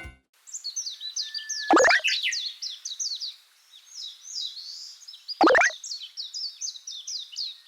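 Cartoon sound effects: birds chirping busily throughout, and twice, about four seconds apart, a short whistle tone that drops quickly in pitch into a low plop.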